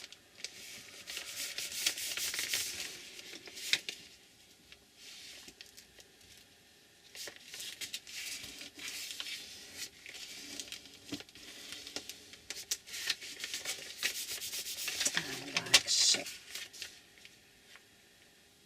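Paper being rubbed by hand, smoothing a glued photo down onto a thick journal page, in three scratchy stretches of a few seconds each with quiet pauses between.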